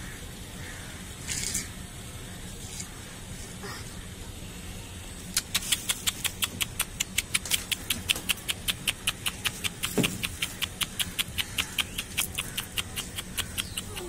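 Rapid sharp tapping, about five clicks a second, from pigeons pecking grain off a concrete floor. It starts about five seconds in.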